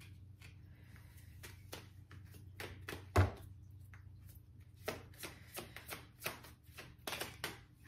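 A tarot deck being shuffled and handled by hand: scattered soft card flicks and slaps, busier in the second half, with one louder knock about three seconds in.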